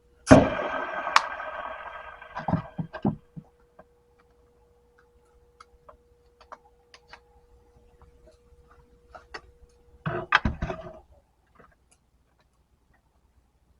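A metal clang that rings on for about two seconds, followed by a few sharp knocks. Scattered light clicks come next, then another brief clatter of metal knocks about ten seconds in.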